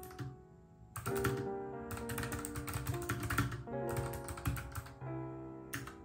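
Fast typing on a compact external Bluetooth keyboard, key clicks in rapid runs that start about a second in, over background music with held notes.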